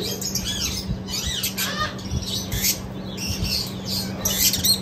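Caged lovebirds chattering and squawking: a steady run of short, high, rapid chirps and squawks, over a steady low hum.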